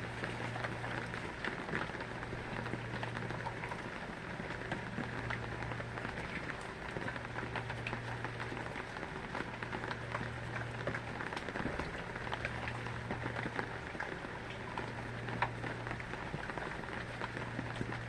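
Rain falling steadily, a dense patter of many small drops on a surface.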